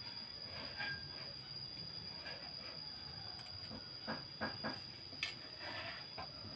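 Eating sounds: chewing, with a few short clicks of a metal spoon against the plate about four to five seconds in, over a steady high-pitched whine.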